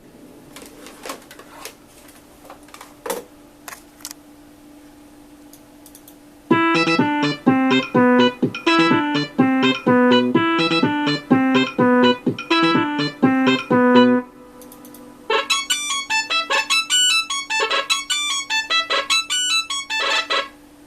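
Nokia 3585 ringtones played as MIDI through a Sound Blaster Live! sound card with the Mobile60 soundfont, in synthesized keyboard tones. A few scattered soft clicks come first. About six seconds in, a fast melody of short notes starts, and after a brief pause a second, higher melody follows.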